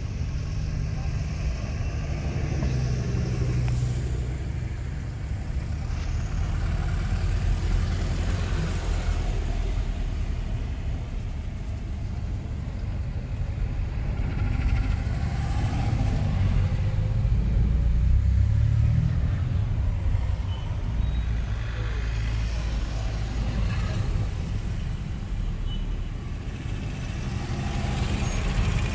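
Car being driven on a road: a steady low rumble of engine and tyres, with a few slow swells as it speeds up or traffic goes by.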